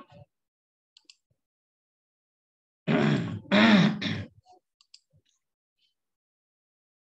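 A man clearing his throat loudly, twice in quick succession, about three seconds in; a few faint clicks before and after.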